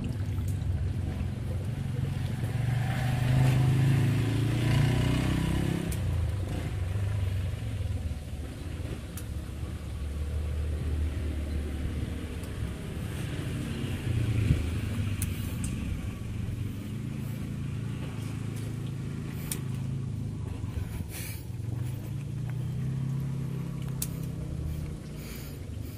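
Engines of road vehicles passing close by, loudest a few seconds in, then a lower engine hum carrying on. There are a few short crackles in the second half.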